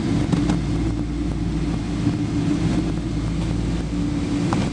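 Boeing 777 cabin noise heard from a passenger seat: the steady drone of the twin jet engines and airflow, with a few low hum tones held at an even level.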